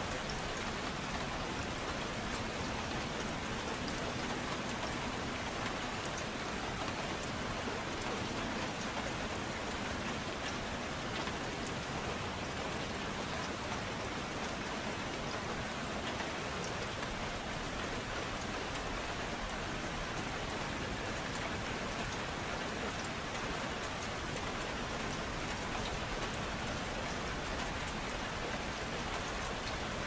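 Steady gentle rain falling, an even patter of many drops at a constant level.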